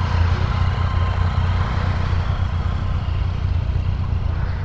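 Motorcycle engine idling with a steady, fast-pulsing low rumble, which stops near the end.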